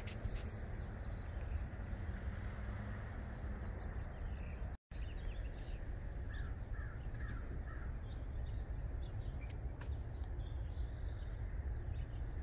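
Outdoor ambience with a steady low background rumble and a bird calling: a quick run of about four short calls about six seconds in, with fainter chirps scattered through. The audio drops out for a moment just before the calls.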